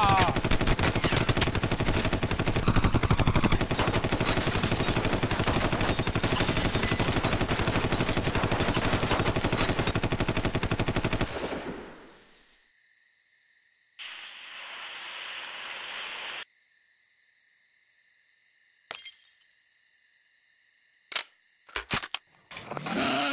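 Tommy gun (Thompson submachine gun) sound effect firing one long, continuous, rapid burst for about eleven seconds, then cutting off. It is followed by quiet, with a faint high hiss and a few sharp clicks near the end.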